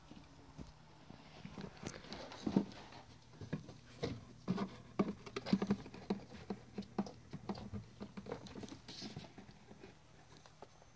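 Three- to four-week-old kittens scuffling and scampering among cables on a wooden floor: a quick, irregular run of light taps, scratches and soft knocks, busiest from about two to nine seconds in.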